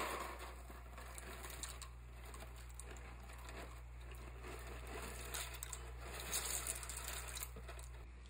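Dry farfalle (bow-tie) pasta poured and shaken out of its cardboard box into a pot of water: a dense patter of small rattling clicks with the crinkle of the box, busiest a little past halfway.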